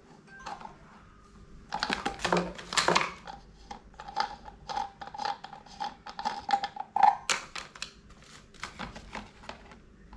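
Plastic parts of an electric fan being handled and pressed together during assembly: a rapid, irregular run of clicks, taps and knocks, loudest about two to three seconds in.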